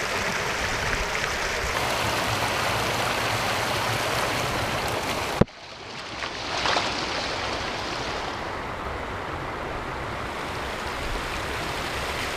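Water rushing over a river weir and through rapids: a steady, even rush. About five and a half seconds in it breaks off with a click and drops, then builds back up.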